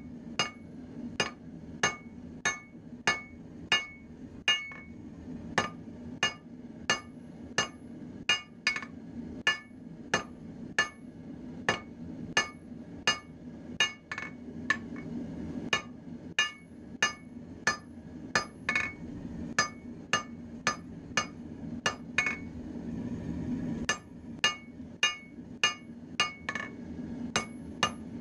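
Hand hammer striking a red-hot railroad spike on an anvil in a steady rhythm of about one and a half blows a second, each blow with a short ring from the anvil. The hammering stops for a moment near the end, then resumes, over a steady low hum.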